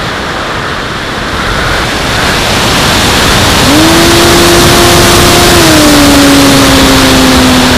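Onboard sound of a Skyhunter RC plane in flight: loud wind rush over the camera microphone. The electric motor and propeller are off at first, then come back on with a rising hum nearly four seconds in and drop a step lower in pitch about two seconds later.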